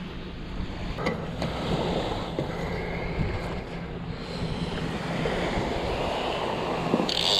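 Wind buffeting the microphone over breaking surf, with a few light knocks. Near the end, a high-pitched steady whine starts suddenly.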